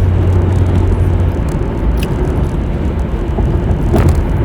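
Steady road and engine rumble heard from inside a moving car's cabin, with a brief click about four seconds in.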